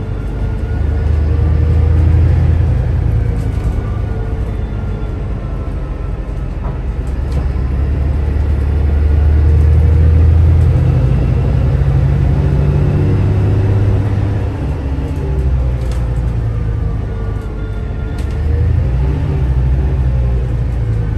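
Volvo B8RLE bus's diesel engine pulling under load through its ZF Ecolife automatic gearbox: a deep drone that swells and eases, its pitch stepping as the gearbox changes gear, loudest about ten seconds in.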